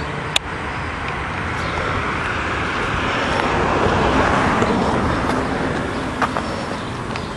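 A car passing on the street: road noise swells to a peak midway and fades away. A sharp click comes just after the start.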